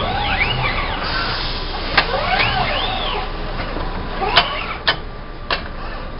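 Kawasaki industrial robot arms' servo motors whining in repeated arcs of rising and falling pitch as the arms move, over a steady background noise. One sharp clack comes about two seconds in and three more come close together in the last two seconds.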